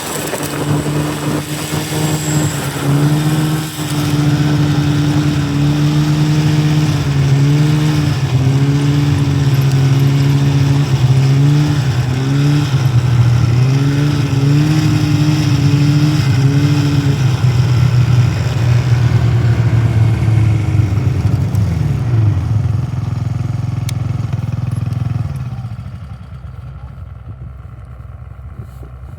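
Yamaha SnoScoot 200 kids' snowmobile engine running under way, its pitch rising and dipping as the throttle is worked. Over the last several seconds the pitch drops and the sound fades as the sled moves away.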